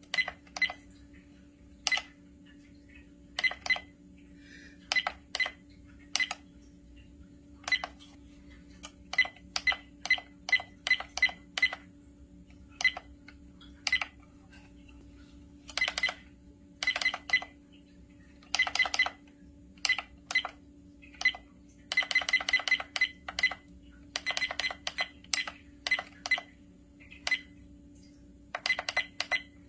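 A trail camera's key beeps as its menu buttons are pressed: short high electronic beeps, some single and some in quick runs of several presses, with pauses between.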